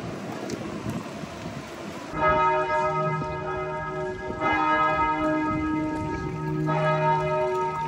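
Wind and rain noise, then about two seconds in church bells start ringing, with a fresh stroke roughly every two and a half seconds and each tone ringing on until the next.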